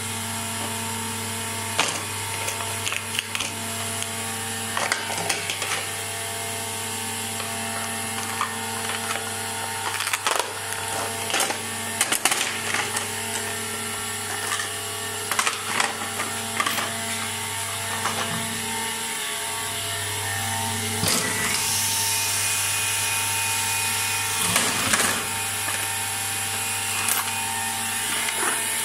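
Bizerba GLM-I weigh-price labelling machine running: a steady electric motor hum made of several fixed tones from its drive and conveyor. Scattered sharp clacks and knocks come as plastic trays are handled on the rollers and carried through.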